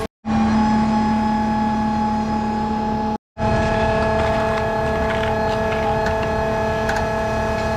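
An engine running steadily with a constant hum, in edited pieces broken by two brief cuts to silence, one at the very start and one about three seconds in.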